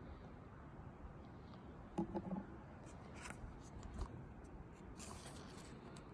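Faint rustling and sliding of trading cards being handled and flipped through, with a few soft clicks.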